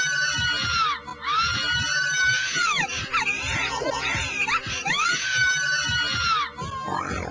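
A shrill voice screaming in a run of about five long shrieks, each rising, held high, then dropping away, over backing music.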